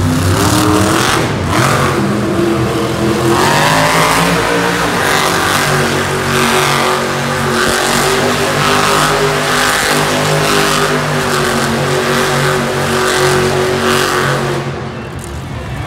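Monster truck's supercharged V8 engine revving hard, its pitch rising and falling with the throttle, easing off near the end.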